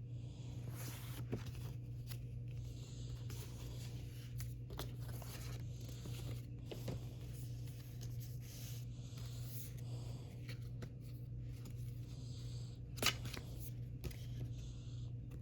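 K-pop album packaging being torn open and handled: irregular tearing and rustling, with a sharp click near the end, over a steady low hum.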